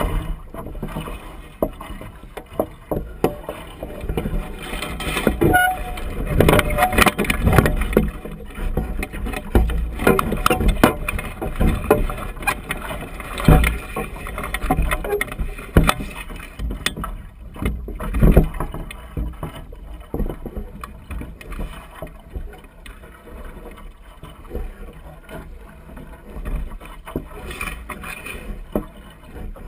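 Water slapping and splashing against the hull of a small lateen-rigged sailing dinghy under way, with wind rumbling on a microphone mounted on the deck. The slaps come thick and irregular for the first two-thirds, then ease off.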